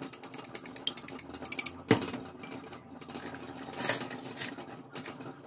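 Gas stove igniter clicking rapidly while a burner is lit under a saucepan of water, ending in one sharp click about two seconds in. A brief rustle follows near the end.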